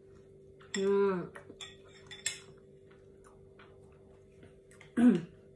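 A metal fork clinking against a ceramic bowl of noodles in a few light clicks, the sharpest about two seconds in. A woman makes a short wordless vocal sound about a second in and another near the end.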